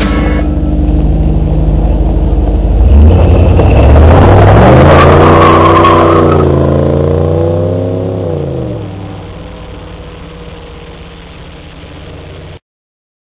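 Third-generation Pontiac Trans Am's V8 running low, then launching hard with a brief tyre squeal and revving up, with a short dip about six seconds in, as the car pulls away. It fades into the distance and cuts off abruptly near the end.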